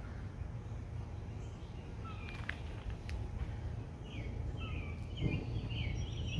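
Outdoor garden ambience: small birds chirping in short, repeated calls from about two seconds in, over a steady low rumble.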